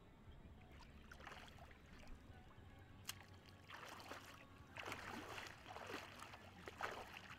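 Shallow water sloshing and splashing in a run of short swishes about a second apart, as a person wades and works a pole in a flooded field; a single sharp click comes about three seconds in.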